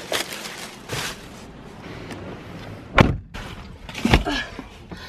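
Someone climbing into a car with rustling and handling noise, then the car door slamming shut about three seconds in, followed by a softer thump a second later.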